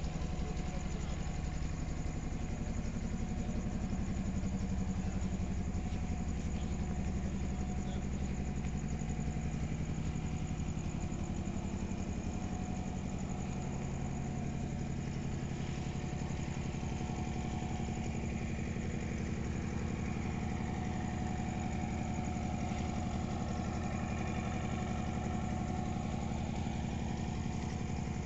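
An engine running at a steady idle: a low, even drone with a fast regular pulse and no change in pitch.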